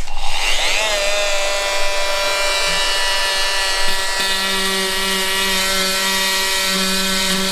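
A small corded electric bone saw with a round blade starts up, its whine rising in pitch over the first second and then running steady. The blade cuts into a model femur, and a lower hum joins the whine about four seconds in.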